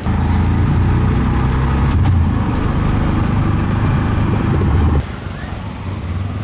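Auto-rickshaw (tuk-tuk) engine running steadily as it drives along a road, heard from inside the open passenger cabin with road noise. About five seconds in it cuts to quieter outdoor traffic background.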